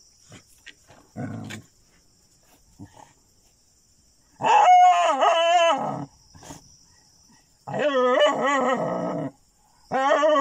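An animal gives three long, wavering cries, each about a second and a half, with a short low sound about a second in.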